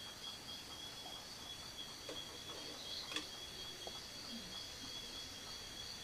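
Night insects chirring: a faint, steady, high-pitched trill, with one sharp click about three seconds in.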